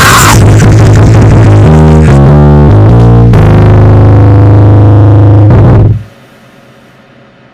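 Loud, heavily distorted noise-rock instrumental with guitar: a dense wall of noise breaks off just after the start into a run of low distorted notes, then a held low drone that cuts off suddenly about six seconds in, leaving a faint fading hum.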